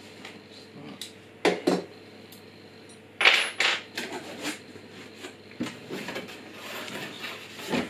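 Hands rummaging in a cardboard box: cardboard scraping and rustling, with a few sharp knocks and clatters, the loudest a little over three seconds in.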